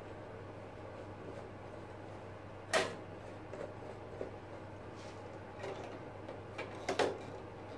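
A few sharp knocks and clicks as the parts of a stopped band saw are handled after a blade change: the loudest comes about three seconds in and a quick double knock near the end, over a faint low hum.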